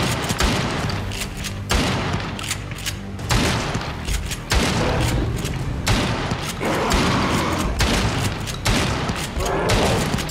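Pump-action shotgun fired again and again, a sharp blast about every second and a half, over a dramatic film score.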